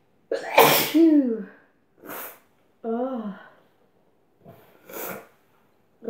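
A woman sneezes hard about half a second in, the sneeze ending in a falling vocal 'choo', brought on by sniffing chhinkni sneezing powder. Short breathy bursts and falling vocal sounds follow, with another sneeze-like burst near the end.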